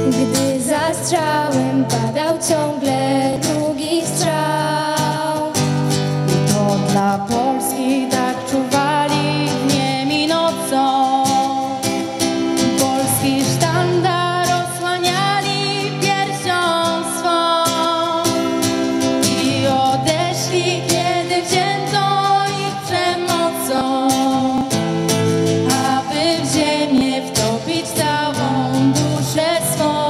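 Young female voices singing a song together into microphones, accompanied by a strummed acoustic guitar.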